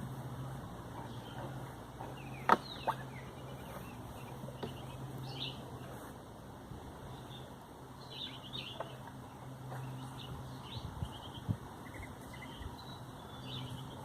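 Small birds chirping now and then over a low steady hum, with a sharp click about two and a half seconds in and a few lighter knocks.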